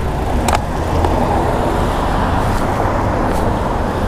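Steady rush of wind and street traffic on a microphone worn by a cyclist riding along, with a deep rumble and one sharp click about half a second in.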